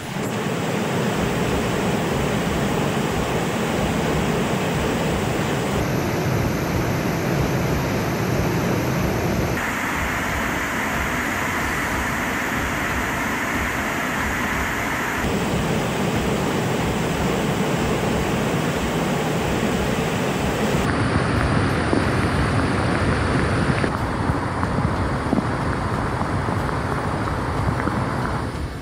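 Loud, steady rushing noise of a heavy rainstorm and floodwater, with wind, changing abruptly several times as one clip cuts to the next.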